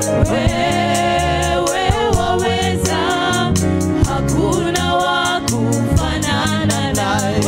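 Gospel worship singing: a woman lead singer with two backing singers, on microphones, with vibrato in the held notes, over instrumental backing with sustained bass notes and a steady beat.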